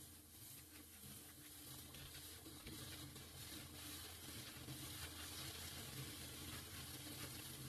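Faint, steady sizzling of an egg frying in cooking oil in a pan, over a steady low hum.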